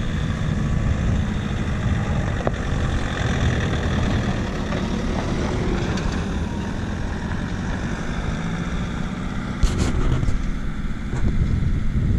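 Nissan four-wheel drive driving past on a gravel road, engine running and tyres on loose gravel, under a heavy rumble of wind on the microphone. A single sharp click about ten seconds in.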